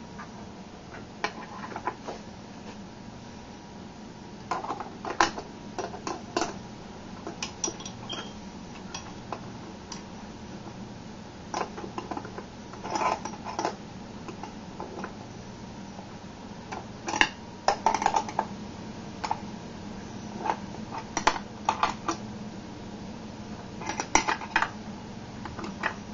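Metal hold-down clamp parts and bolts clinking and scraping as a clamp is fitted and tightened on a CNC router's T-slot table: scattered single clicks and short clusters of clatter, over a faint steady hum.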